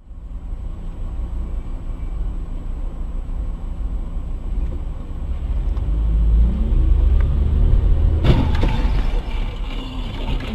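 A car driving on the road: a steady low rumble from the road and engine that grows louder from about six seconds in, followed by a sudden, louder noisy stretch lasting about a second, starting about eight seconds in.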